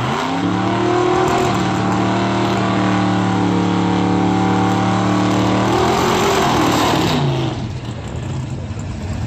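Supercharged V8 drag car doing a burnout: the engine revs up sharply, holds at high revs for about five seconds while the rear tyres spin, then drops off the throttle about seven seconds in.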